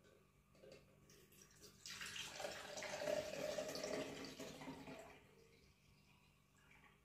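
Homemade almond milk poured from a jug through a small strainer into a plastic jug: a stream of liquid splashing and trickling for about three seconds, starting about two seconds in and tapering off, as the milk is filtered.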